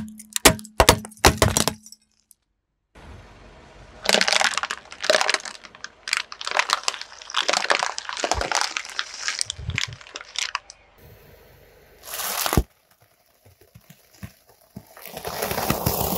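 Brittle objects cracking and crunching under a car tyre. A quick run of sharp cracks comes first, then a long stretch of crackling crunches, a single loud crunch a little after the middle, and a last burst of crunching near the end.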